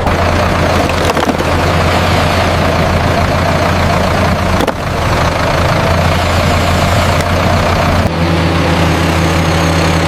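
Heavy machinery diesel engine running steadily with a low hum, with a single knock about halfway through. Shortly before the end the engine note changes.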